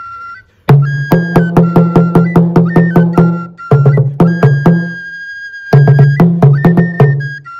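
An Igbo ikolo wooden slit drum beaten fast with two sticks, about five strokes a second on two low pitches, starting about a second in with two short breaks. A high piping melody sounds over it and holds one long note in the middle.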